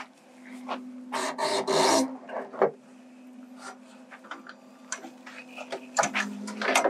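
Rubbing and scraping as a Kenworth W990's tilt hood is heaved open by hand, loudest about a second in, followed by scattered scrapes and knocks. The hood's pivot points are ungreased, which makes the hood stick.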